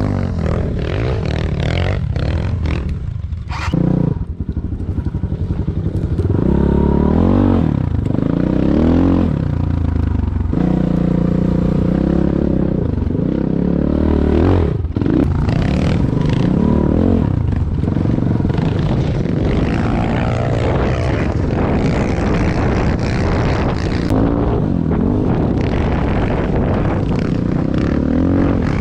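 Enduro motorcycle engine revving up and down over and over as it is ridden, its note rising and falling every second or two, with short breaks in the engine note about four seconds in and again about fifteen seconds in.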